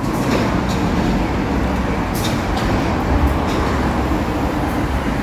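Steady road traffic noise from vehicles passing on the road beside, a continuous low rumble with a few faint clicks.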